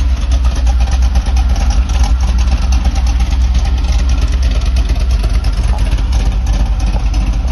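1985 Chevy van's carbureted engine running steadily, a dense low rumble with a fast, even patter over it.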